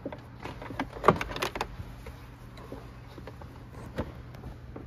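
A handful of sharp clicks and knocks from parts and tools being handled during trim work inside a car, in a cluster about a second in, with the loudest there, and one more near the end, over a steady low hum.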